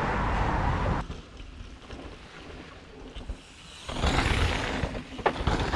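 Wind rushing over a helmet camera's microphone, mixed with the rumble of mountain-bike tyres rolling down a dirt trail. The noise drops off abruptly about a second in and picks up again at about four seconds, with one sharp click a little after five seconds.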